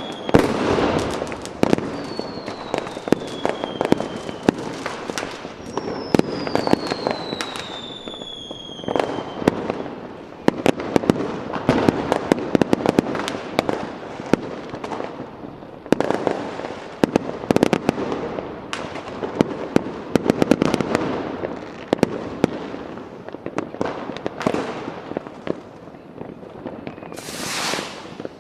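Fireworks going off in a dense run of bangs and crackles, with several whistling rockets gliding down in pitch in the first nine seconds and a short high hiss near the end.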